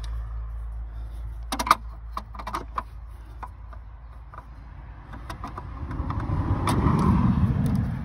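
Screwdriver working at a plastic alarm bell box cover on a brick wall: a run of sharp clicks and taps about two seconds in, over a low rumble that swells into a rough rustle near the end.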